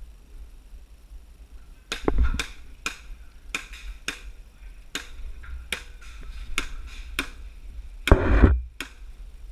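A string of about a dozen sharp clicks and knocks at an irregular pace, with two louder thumps about two seconds in and near the end.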